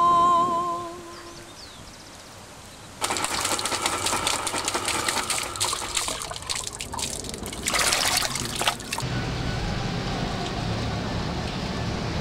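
A sung note with vibrato dies away. About three seconds in, water splashes and sloshes in a bucket as a hand is washed in it, for several seconds. Near the end it gives way to a steady hiss of rain.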